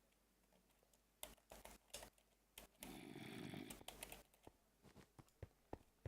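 Faint scattered clicks and taps, with a short soft rushing noise lasting about a second near the middle.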